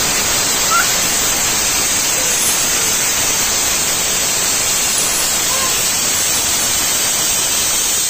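Aluminium stovetop pressure cooker whistling: its weighted whistle vents steam in a loud, steady hiss. This is one of the whistles that are counted to time the pressure cooking.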